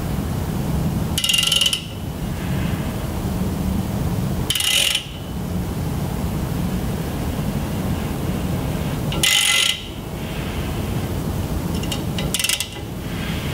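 A ratchet on the crankshaft socket of a small-block Chevy short block clicks in four short runs of about half a second each, as the crank is rotated by hand to take degree-wheel readings on the cam. A large shop drum fan runs steadily underneath.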